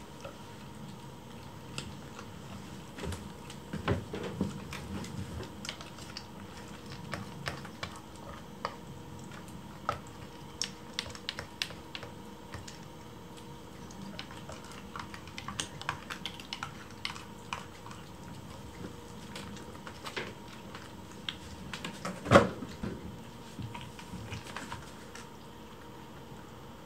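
Kittens eating from ceramic bowls on a wooden floor: many small, quick clicks and taps of licking, chewing and bowls being nudged, with a utensil clinking against the bowls as food is served. One louder knock about 22 seconds in, over a faint steady hum.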